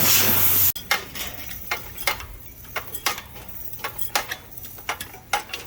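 Pressure washer spray hissing on the patio floor, cut off abruptly under a second in; then a run of scattered light clicks and knocks.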